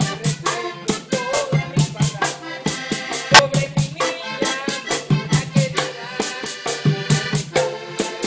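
Live vallenato music: diatonic button accordions play over a caja hand drum and fast, even percussion strokes, while a man sings.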